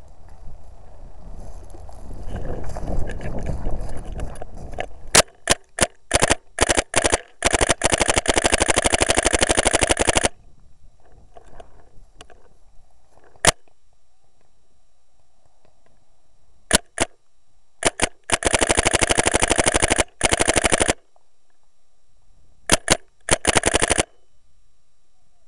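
Paintball marker firing: single shots and short strings about five seconds in, then a rapid continuous string of about two and a half seconds, a few isolated shots, another string of about two and a half seconds, and a short one near the end. Before the firing there is rustling movement noise.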